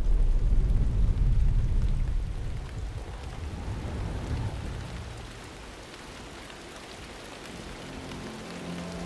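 Deep thunder rumble fading away over the first few seconds, under steady rain with scattered drop ticks. Soft sustained music notes begin near the end.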